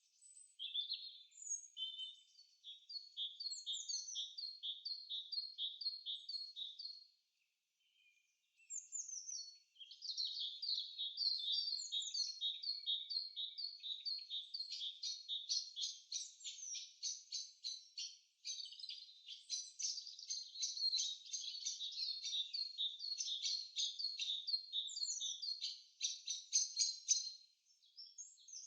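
Songbirds singing in a forest: fast series of quick repeated high chirping notes and trills, breaking off about seven seconds in, then resuming denser and fuller to the end.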